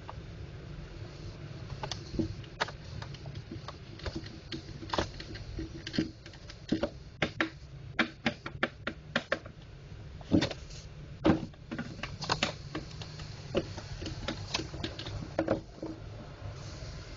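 Irregular clicks and taps of hard plastic as a laser printer's drum unit is handled and worked on with a screwdriver.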